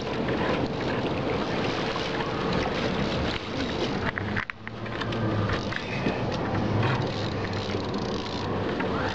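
Steady wind buffeting the microphone over outdoor background noise, with a few faint clicks and a brief drop in level about four and a half seconds in.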